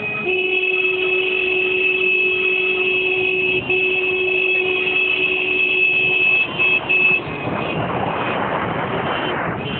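A vehicle horn held down in one steady tone, broken by brief gaps about a third and two thirds of the way through, over traffic noise. A rush of noise swells near the end.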